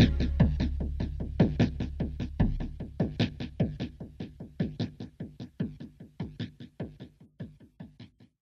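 Music ending: a fast, even beat of short hits over a low drone. The drone drops out about two and a half seconds in, and the beat fades away, stopping just before the end.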